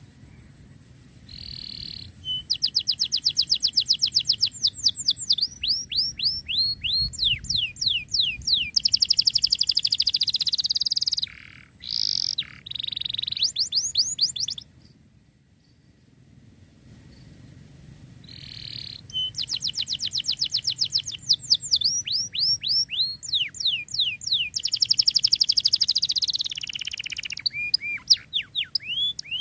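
Domestic canary singing hard in two long song phrases of rapid trills and fast runs of repeated downward-sweeping notes, separated by a pause of about four seconds.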